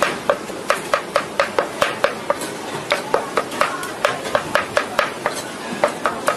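Cleaver chopping fast and evenly, mincing a pile of ingredients: a run of sharp knocks at about four strokes a second.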